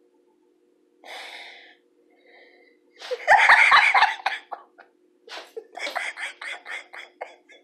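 A person laughing in bursts over a faint steady hum. There is a breathy gasp about a second in, a loud laugh around three seconds in, then a run of quick short laughs near the end.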